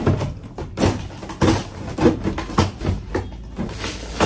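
A long metal bar scraping and knocking against a bus wall's rotted honeycomb insulation board and its fiberglass skin as the board is pried and torn away: a run of uneven scrapes and knocks, about two a second.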